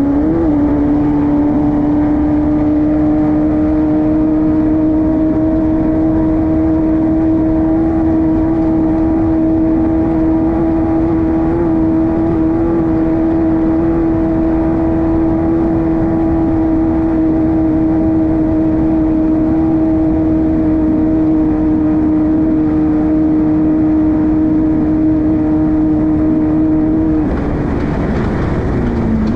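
Class 5-1600 race car's air-cooled VW 1600cc flat-four engine holding a steady high rev for a long stretch, over a rough rumble of wind and terrain. Near the end the engine note drops and wavers for a couple of seconds as the throttle comes off, then climbs again.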